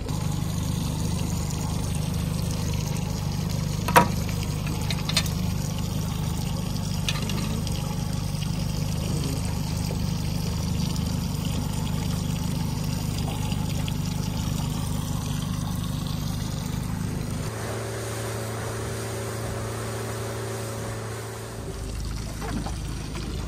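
Outboard motor running steadily at low trolling speed, with water trickling and splashing along the hull. A single sharp click comes about four seconds in, and the motor's hum shifts to a different pitch about two-thirds of the way through.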